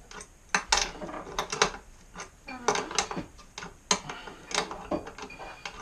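A series of irregular sharp clicks and clanks of hand tools being worked against metal bolts.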